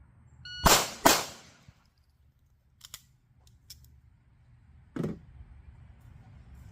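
A shot-timer beep, then two quick pistol shots about half a second apart, the two-shot recoil test fired on the beep. A few faint clicks follow, then a short burst of noise about five seconds in.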